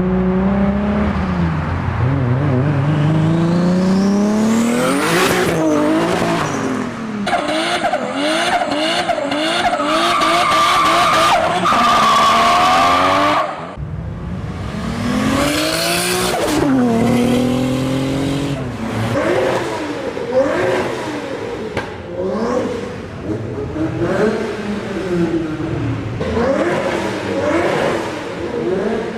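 Turbocharged car engines revving hard and dropping off again and again, as in gear changes and throttle lifts, with the rapid chattering flutter of a turbo on lift-off. Several cars follow one another, with a sudden switch about halfway.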